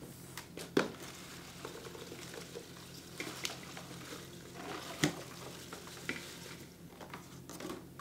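Loose salad greens rustling as they are tipped from a plastic clamshell container into a salad spinner basket, with a few sharp plastic clicks and knocks, the loudest about a second in and about five seconds in.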